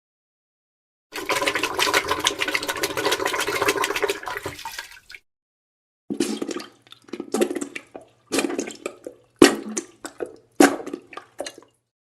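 Wet, spluttering diarrhea and fart sound effects: a crackling, sputtering run lasting about four seconds, then after a short pause five short wet bursts.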